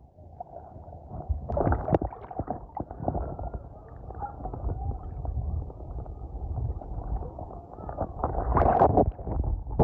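Muffled sloshing and rumbling of shallow sea water around the legs of a wading angler, swelling about a second and a half in and again near the end.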